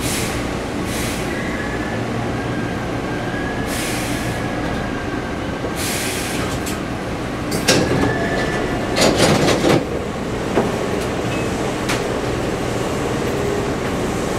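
Hankyu electric train running in an underground tunnel, heard from inside the car: a steady rumble of wheels and motors with a faint wheel squeal. Several short bursts of rail clatter pass, the loudest about eight to ten seconds in.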